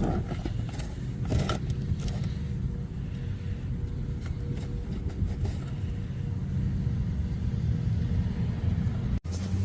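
A BMW N54 twin-turbo straight-six engine running steadily at idle, with a few light clicks in the first two seconds.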